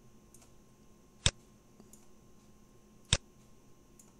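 Two sharp computer mouse clicks, about two seconds apart, over faint room hiss.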